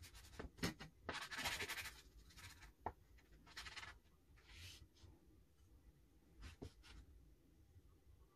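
Faint watercolour brush strokes on paper and at the paint plate: a few short scratchy swishes, the longest about a second in, with light taps between them.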